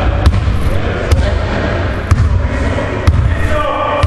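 Basketball dribbled on a hardwood gym floor: four sharp bounces about a second apart, over a steady low rumble.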